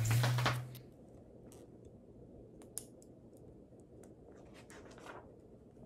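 A short noisy rustle with a low hum that stops under a second in, then quiet room tone with a few faint clicks and light scratches.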